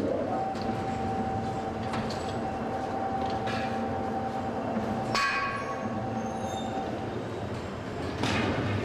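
Bell-foundry machinery running with a steady rumble and a held mechanical whine that stops about seven seconds in; about five seconds in, metal strikes metal with a sharp clank that rings briefly.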